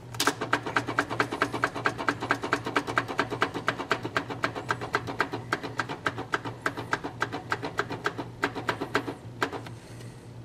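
GE electric oven's touch control panel giving a rapid run of short electronic beeps, about four or five a second, as the plus button is pressed over and over to set a 35-minute cooking time. The run stops about nine seconds in, followed by a couple of single beeps near the end.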